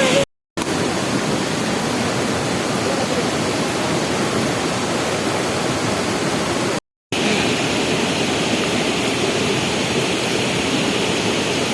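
Waterfall rushing steadily, a dense even wash of falling water. It cuts out to silence for a moment twice.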